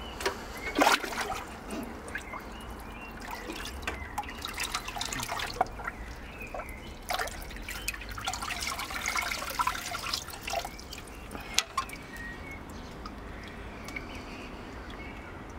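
Water sloshing, trickling and dripping as a clear plastic box is dipped into a tub of water and lifted out, with irregular small splashes and drips throughout.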